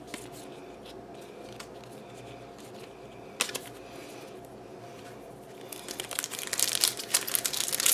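Foil booster-pack wrapper crinkling and tearing as it is opened, starting about two-thirds of the way in and growing louder. Before that, only faint clicks of trading cards being handled.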